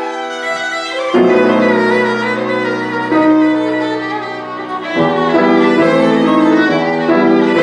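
Violin playing long held notes over piano accompaniment. The piano strikes new chords about a second in and again about five seconds in.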